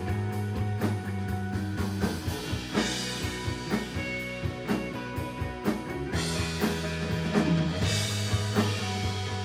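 Rock band playing an instrumental passage: drum kit keeping a steady beat under electric guitar and held bass notes, with no singing.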